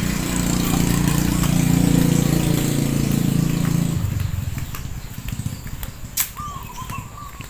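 An engine running steadily, fading out about four seconds in. After it come light footsteps and a short high chirp near the end.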